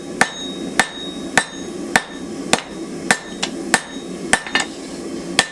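Blacksmith's hand hammer striking hot steel on an anvil, drawing out the tang of a knife blank. Evenly paced blows, a little under two a second, each with a short metallic ring, over a steady low rumble.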